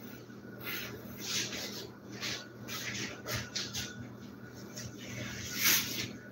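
Intermittent rubbing and scraping of a sponge wiping a kitchen countertop and other cleaning handling, over a faint steady low hum.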